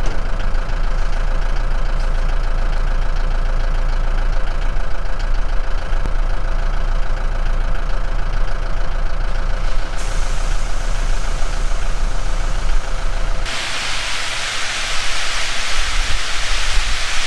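Tractor engine running steadily with a deep rumble. About thirteen seconds in it gives way abruptly to a loud, steady hiss.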